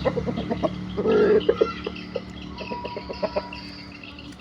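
Bangkok chicken clucking: a run of short, repeated clucks with a louder burst about a second in, over a steady low hum.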